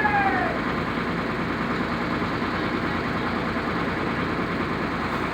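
An engine running steadily at idle. At the very start a brief whine glides downward and fades out.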